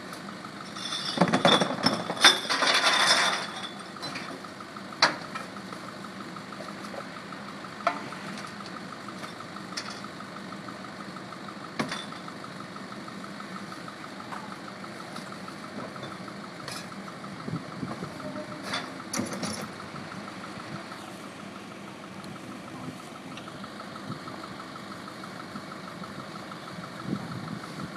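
Small rear-loader garbage truck idling with a steady drone. About a second in there is a loud clatter of trash crashing into the hopper as a wheeled cart is tipped, and a few sharp knocks follow later.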